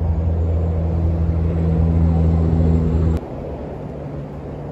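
Steady low engine hum with a deep tone and overtones that stops suddenly about three seconds in, leaving a fainter, higher hum.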